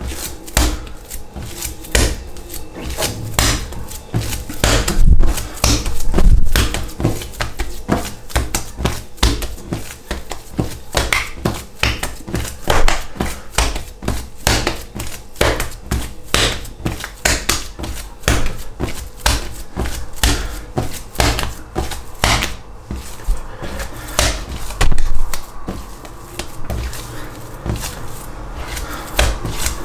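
Hands kneading a wet, 75%-hydration pizza dough on a worktop: repeated irregular slaps and knocks, a few a second, as the dough is stretched open and folded back over itself to develop its gluten.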